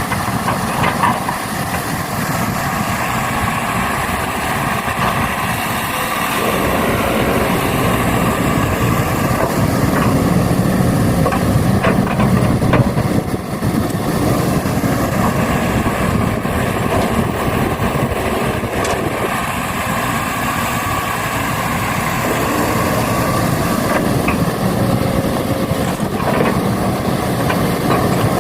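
Radio-controlled model trucks and excavator running with a steady engine-like drone, broken by a few short clicks and knocks.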